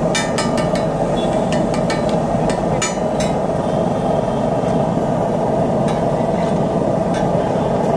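Metal spatula clanking and scraping on a large flat iron griddle as a heap of scrambled egg bhurji is tossed and turned, with a quick run of clanks in the first second and single ones after. Steady background noise runs underneath.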